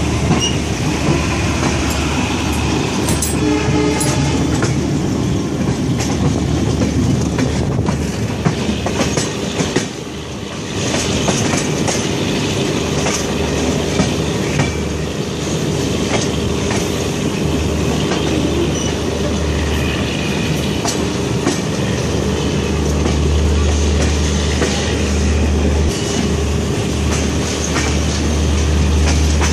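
Rajdhani Express passenger coaches running along the track, heard from an open coach door: a steady rumble of wheels on rail with scattered clicks as the wheels cross rail joints.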